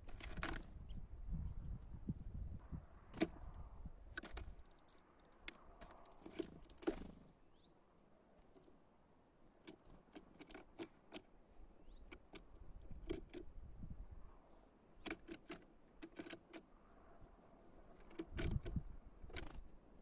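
Tits landing on a plastic bottle bird feeder and pecking at sunflower seeds: scattered sharp clicks and taps on the plastic, with a few faint high chirps. A low rumble, like wind on the microphone, at the start and near the end.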